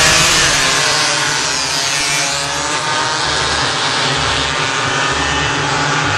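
A pack of motorcycles launching together off a drag-race start line, engines revving hard and loud. The revs sweep up and down as the bikes accelerate away down the strip.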